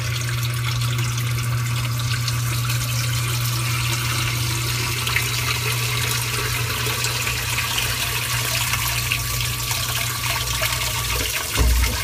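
Sump pump running with a steady hum as water churns and drains down the pit, then the motor stops near the end with a low thump. The float switch, re-seated after sticking, now cuts the pump off as the water level falls.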